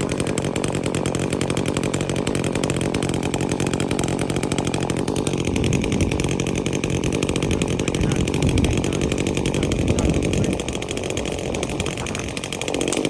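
Echo CS-355T top-handle two-stroke chainsaw running steadily, easing off a little near the end and then picking back up.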